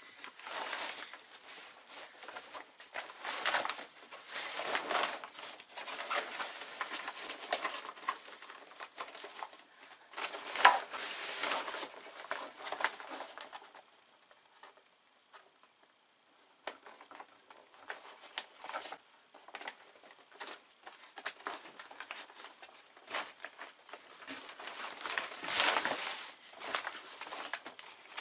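Stiff Dacron sailcloth rustling and crinkling in uneven bursts as it is handled during hand stitching, with thread drawn through the cloth. It pauses briefly about halfway through.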